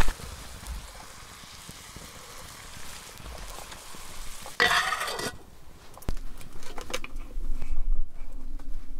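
Soft, steady sizzling of food cooking in a pan over a wood fire, with a brief louder sizzle about halfway through, then scattered faint clicks.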